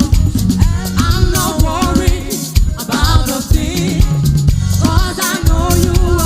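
Live gospel band music: a singer over drums and bass, with a steady percussion beat.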